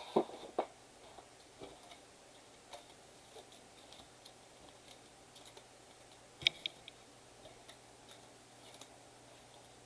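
Trading cards and cardboard blaster boxes being handled on a table: scattered light taps and clicks, a couple of soft knocks at the start and a sharper click about six and a half seconds in.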